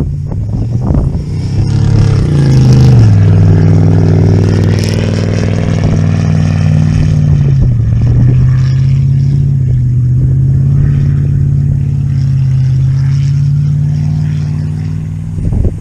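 A vehicle engine runs, rising in pitch about two seconds in as it is revved, then holding at a fairly steady speed with small rises and falls.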